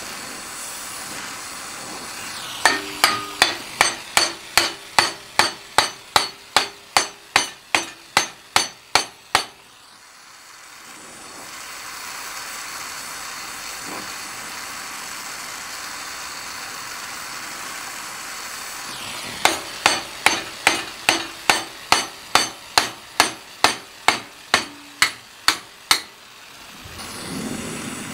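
Rapid hand-hammer blows on the torch-heated end of a steel bar held in a vise, upsetting the end, about three blows a second in two runs of several seconds each with a pause between. An oxy-fuel torch hisses steadily underneath.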